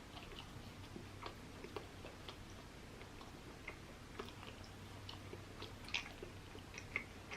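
Close-up chewing of a steak sandwich on French-style bread: soft wet clicks and small crunches of mouthfuls being worked, faint and irregular.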